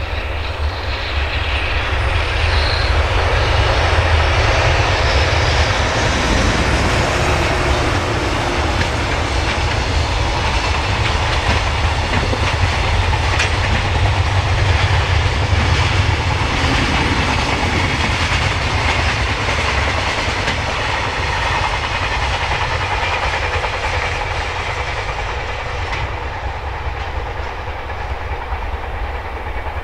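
Freight train hauled by an EH500 electric locomotive, with its container flat wagons passing at speed, wheels clattering over the rail joints. It builds to its loudest about four seconds in, then holds steady as the wagons roll by.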